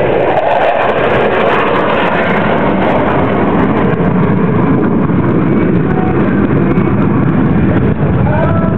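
Jet engines of four fighter jets in diamond formation flying past overhead: a loud, steady rushing noise that holds throughout, with faint rising whines near the end.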